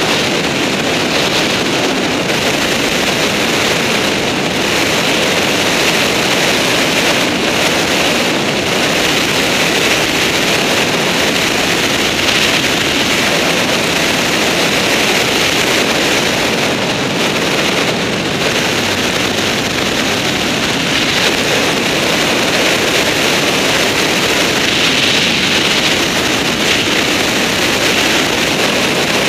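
Race car driving fast on a gravel road, picked up by a camera on its bonnet: a steady, loud rush of engine and tyres on gravel with no sudden knocks or changes.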